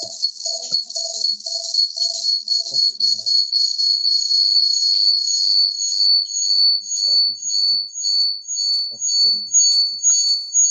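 High-pitched chirping: two high tones pulse about twice a second throughout, with a lower pulsing tone that stops about three seconds in.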